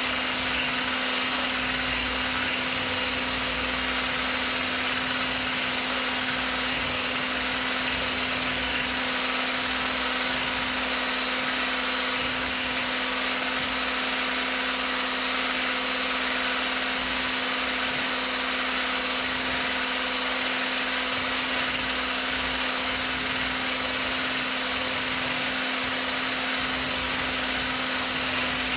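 Mueller electric hand blender with a small coil whisk attachment running steadily at constant speed, whipping a lotion mixture to thicken it.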